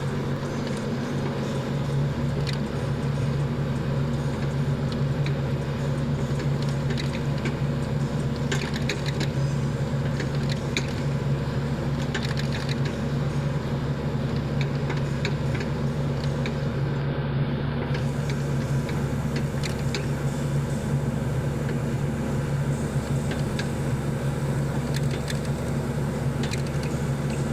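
Sany 75 excavator's diesel engine running steadily, with scattered sharp clicks and knocks from the machine, taken for the play of a loose, worn swing bearing.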